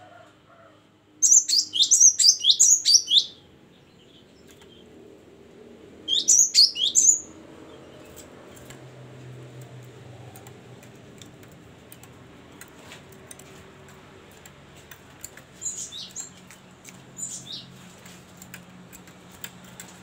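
Cinereous tit singing in loud runs of rapidly repeated high, sharp notes. A run of about eight notes comes about a second in and a shorter run of four or five around six seconds, then softer, shorter phrases near the end.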